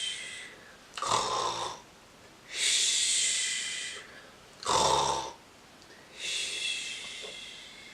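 A person imitating snoring: two short rasping snorts on the in-breath, each followed by a long, fading, hissing breath out.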